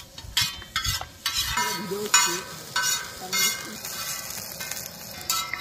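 Metal and wooden spatulas scraping and stirring scrambled egg across a large flat pan in a string of quick strokes, with the egg sizzling.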